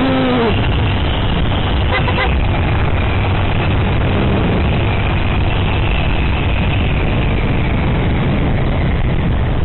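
Motorcycle engine running steadily at road speed, under a heavy, even rush of wind on the helmet-mounted microphone.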